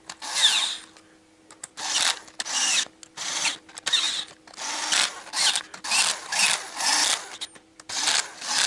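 Cordless drill-driver spinning nuts down onto a cylinder head's camshaft bearing-cap block in short bursts, about a dozen in all, with a whine rising at the start of several bursts. Its torque clutch is set to 10 N·m.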